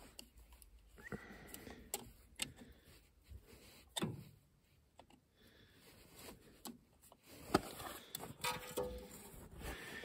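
Faint, irregular clicks and scrapes of a hand tool working the metal hose clamps on a tractor's heater hoses.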